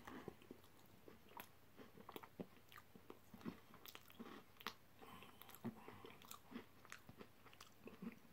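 Faint, irregular crunching and chewing of a mouthful of jam roly poly pudding with custard. The pastry is hard and crunchy, which the eater puts down to maybe having slightly overcooked it.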